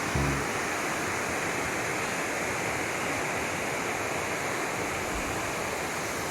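Steady, even rushing noise with no separate sounds in it, of the kind running water makes; a music ending cuts off in the first half second.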